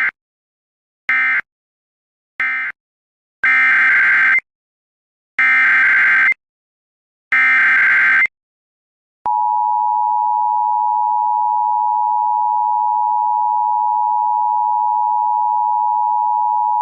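Emergency Alert System data bursts: three short buzzy end-of-message bursts, then three longer header bursts about a second each. These are followed by the steady two-tone EAS attention signal, held for about eight seconds.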